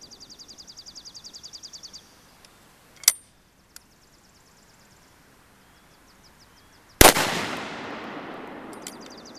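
One gunshot from a single-shot 12-gauge shotgun firing a hot .38 Special hand load through a chamber adapter, about seven seconds in: a sharp crack whose report dies away over about two seconds. About three seconds in there is a shorter, sharp click or knock, and a high, rapid chirping runs through the first two seconds.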